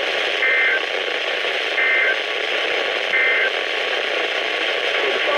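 EAS end-of-message signal on NOAA Weather Radio: three short identical bursts of warbling SAME digital data tones about a second apart, marking the end of an alert, over steady radio hiss and static.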